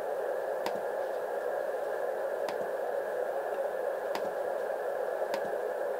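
Receiver hiss from an X1M Pro HF QRP transceiver tuned in LSB to an empty spot on the 15 m band: steady band noise squeezed by the narrow filter into a thin middle range. Four short clicks come through it at uneven intervals.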